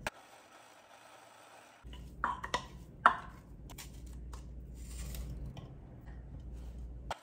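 Kitchen scissors snipping green onions into a plastic chopper bowl: a few sharp snips and clicks about two to three seconds in, then sparser fainter ones.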